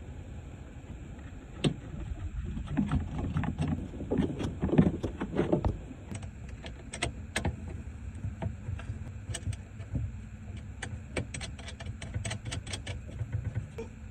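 Scattered clicks, knocks and light clinks of hands and tools at work as a soldered battery terminal lug is fitted back onto a camper battery. The first few seconds are clattery, and quick sharp clicks follow through the rest.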